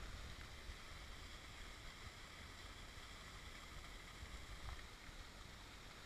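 Faint, steady rush of a thin waterfall falling into a pool, with an uneven low rumble of wind on the microphone.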